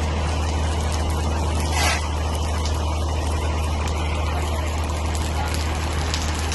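Steady low rumble of a vehicle engine idling, with a constant hiss over it and a brief louder swell about two seconds in.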